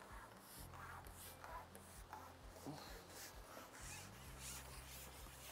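Near silence: faint outdoor background ambience with a low steady hum.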